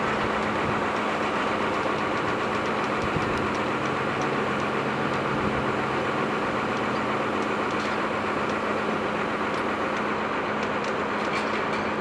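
Sailboat's engine running steadily with an even hum and a faint scattered ticking.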